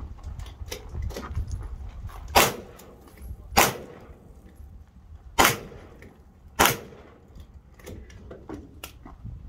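Four handgun shots about a second to two seconds apart, with fainter sharp pops in between.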